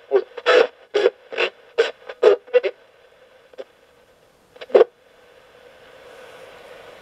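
Coopbox 26 ghost box radio sweeping the FM band: choppy fragments of station audio about two to three a second, then a few isolated blips, and a faint steady hiss of static over the last couple of seconds.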